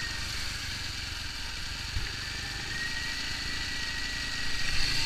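TVS Apache RTR 200's single-cylinder four-stroke engine idling steadily at a raised speed of about 3,000 rpm, its carburettor idle screw turned up as the first step of tuning the carburettor.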